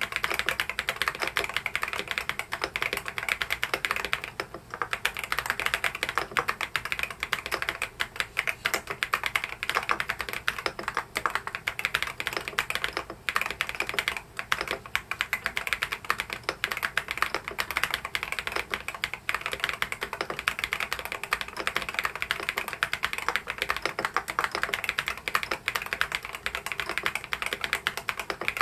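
Continuous fast typing on an EPOMAKER DynaTab 75 mechanical keyboard: a dense run of key clacks, broken by a few short pauses, one about four seconds in and two near the middle.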